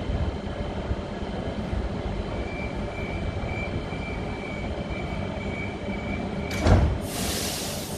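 Stationary NSW TrainLink H-set (OSCAR) electric train idling at the platform: a steady low hum and rumble with a faint steady whine. About seven seconds in comes a sharp knock, the loudest sound, followed by a hiss.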